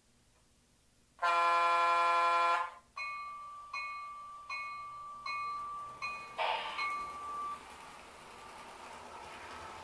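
Onboard sound system of an American Models S gauge PRR GG1 electric locomotive model: one horn blast of about a second and a half, then the locomotive bell dinging about six times in an even rhythm. A short hiss comes about six and a half seconds in, and a faint rising whine follows near the end.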